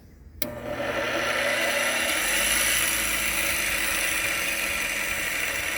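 Chicago Electric bench grinder switched on with a click about half a second in, its motor spinning up and then running steadily with a hum and a high whine. The wheel runs a little wobbly.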